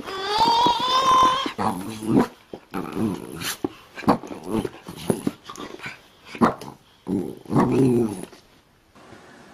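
A small white dog growling playfully in short repeated bursts while it plays. A high-pitched squeal opens the sequence.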